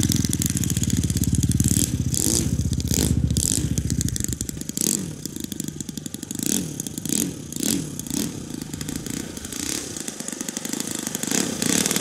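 ENYA R155-4C four-stroke model aircraft engine running on an RC plane. It runs at a steady low idle for the first few seconds, then goes quieter with repeated short rises and falls in pitch as the throttle is blipped, and its pitch starts climbing near the end as it opens up for the take-off run.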